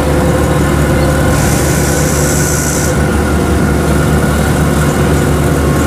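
Diesel engine of a Kubota DC-105X combine harvester running steadily as the machine crawls forward on its tracks. A hiss comes in about a second and a half in and lasts about a second and a half.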